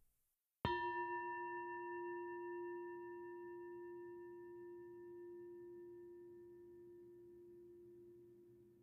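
A meditation bell struck once, about half a second in, then ringing out slowly: a low hum with a few fainter, higher overtones fading over several seconds. It signals the end of a guided breathing meditation.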